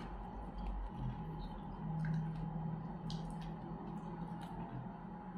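A person drinking juice from a glass jar, picked up close by a lapel mic: scattered small wet mouth clicks and swallows.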